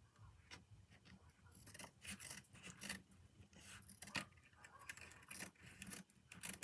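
Scissors cutting open a plastic laundry-detergent refill pouch: faint, irregular crinkling of the plastic and small clicks of the blades.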